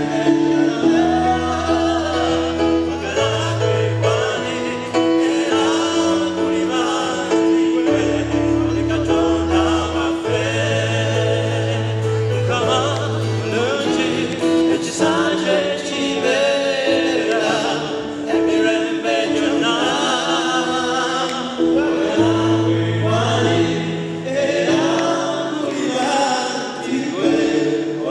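Gospel song sung by several voices over an electronic keyboard playing long held chords and changing bass notes.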